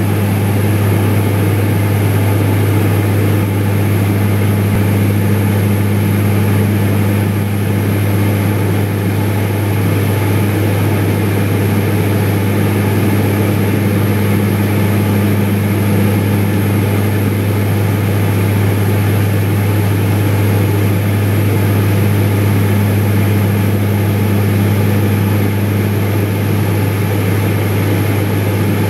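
Propeller aircraft in level flight, heard inside the cabin: a steady engine and propeller drone with a strong low hum and a fainter tone an octave above it, unchanging throughout.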